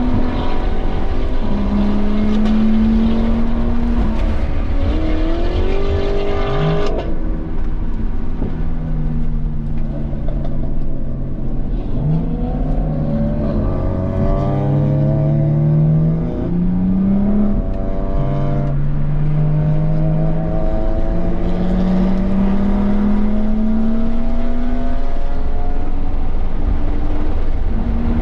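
2017 BMW M240i's turbocharged 3.0-litre straight-six revving hard on track. The pitch climbs under acceleration and drops sharply at lifts and gear changes, with a few quick upward blips of revs between them.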